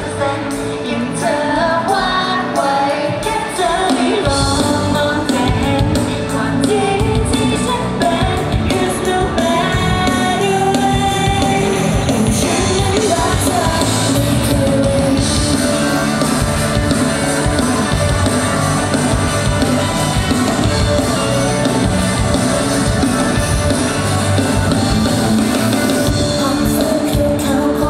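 Thai pop song performed live through a concert PA: female singing over loud backing music, with a steady beat that comes in about four seconds in.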